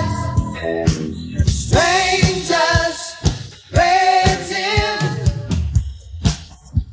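A song with singing and drums playing through a real-time stem-separation plugin, with some of its instrument stems switched off. Near the end the singing stops and mostly drum hits remain.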